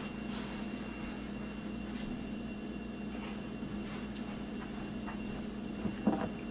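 Steady low background hum with a faint hiss, and a few light clicks near the end as the vape mod is picked up and handled.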